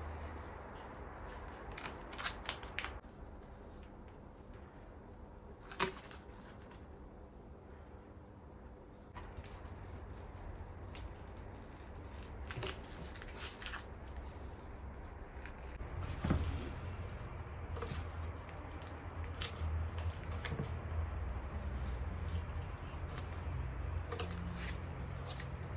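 Painter's tape being removed from a freshly painted dresser by hand: scattered small clicks and scratches. A low rumble grows louder about two-thirds of the way in.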